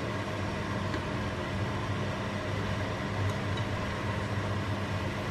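Steady electric hum with a hiss of vegetables cooking in a frying pan on the hob, and a faint scrape or two of a spatula stirring them.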